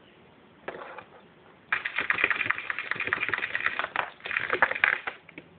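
Holland Lop rabbit digging with its front claws against a plastic tub: a short scratch about a second in, then a rapid run of scratching clicks lasting about three seconds that stops suddenly.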